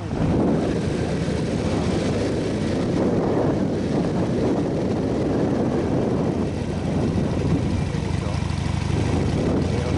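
A motorcycle being ridden along a road: engine and road noise mixed with heavy wind buffeting on the microphone, loud and steady throughout.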